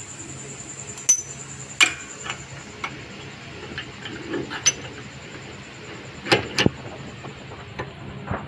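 Sharp metal clinks and knocks as a brake caliper piston wind-back tool's threaded rod and plates are handled and fitted against a rear disc brake caliper. There are about half a dozen irregular clicks, with a close pair near the end.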